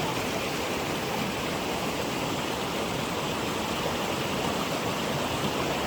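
Water of a small waterfall rushing steadily.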